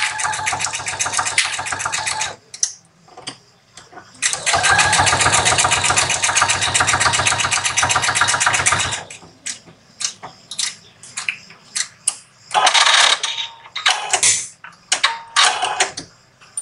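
Domestic sewing machine stitching a seam in rapid, even strokes, in two runs: one stopping about two seconds in, the other from about four to nine seconds. Then short clicks and rustles as the fabric is handled at the machine.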